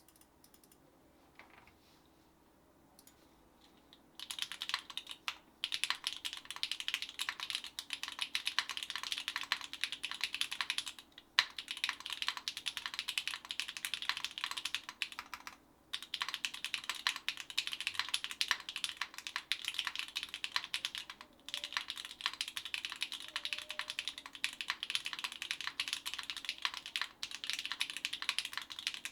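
Fast, continuous typing on a SINGAKBD Kohaku mechanical keyboard with Gateron x Sillyworks Slay Type A switches on a polypropylene plate and GMK Cinder keycaps. It starts about four seconds in, after a quiet stretch, and stops briefly a few times.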